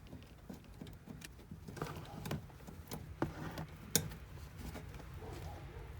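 Small clicks and clinks of screws being handled and started by hand into a fuel pump's retaining ring, with sharper clicks about two, three and four seconds in.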